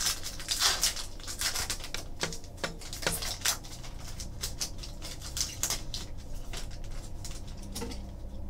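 Trading cards being handled: a foil pack wrapper rustled and torn open about half a second in, then cards slid and flicked against one another in a run of small dry clicks.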